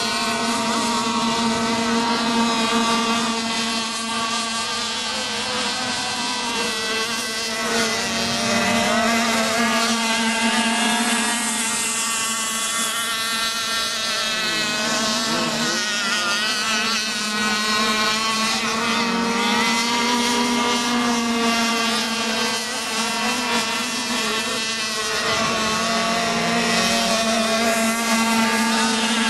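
Several radio-controlled racing boats' small two-stroke engines running flat out as they lap the course, their high buzzing overlapping and wavering in pitch as boats pass by, with a few clear pitch swoops through the middle and near the end.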